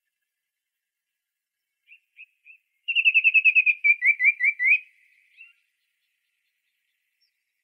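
Oriole calling: three soft notes, then a rapid run of about a dozen short, clear, downslurred notes that slows into four lower notes, about two seconds in all, from a bird-sound library recording.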